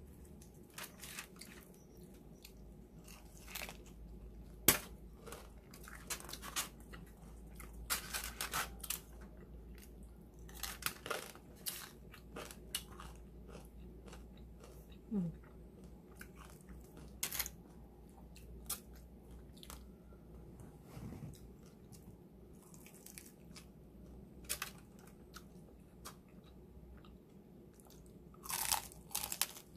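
A person eating an empanada: scattered short crunches and chewing sounds, with one sharp click about five seconds in and a cluster of louder bites near the end.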